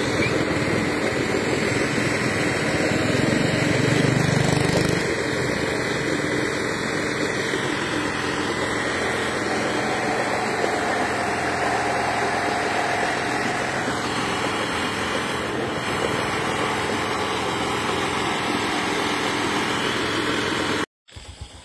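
An engine running steadily at idle, louder for a couple of seconds about four seconds in.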